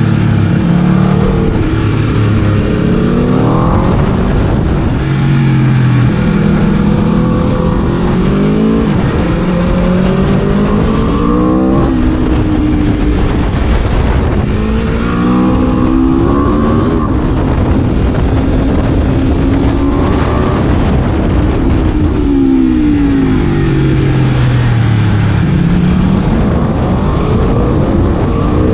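Aprilia RSV4 V4 sport-bike engine being ridden hard. It revs up again and again through the gears, with the pitch falling between pulls as it shifts and brakes.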